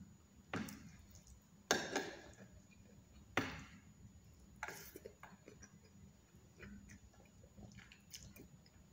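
Close-up eating sounds: four loud, wet mouth smacks in the first five seconds, then softer chewing clicks.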